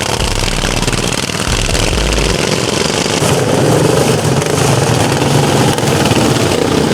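Racing lawn mower engines running, with a steady engine drone that grows stronger about three and a half seconds in.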